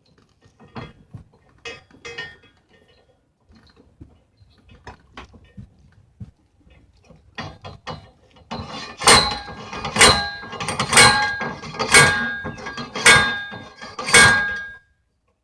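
Steel dock post being hammered down: light knocks and clanks at first, then six loud strikes about a second apart, each one ringing.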